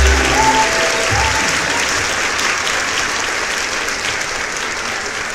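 A crowd applauding steadily, with a little music heard in the first second and a half.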